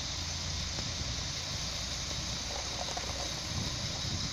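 Alstom Coradia LINT diesel railcar approaching slowly from a distance: a steady low engine rumble under an even, constant hiss.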